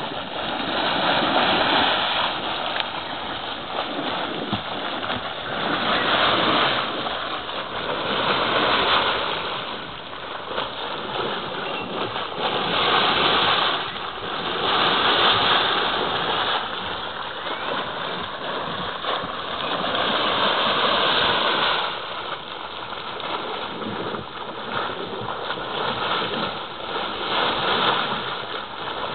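Gas condensate gushing and bubbling out of a leaking oil pipeline into a frothy pool: a steady rushing, gurgling noise that swells and fades every few seconds.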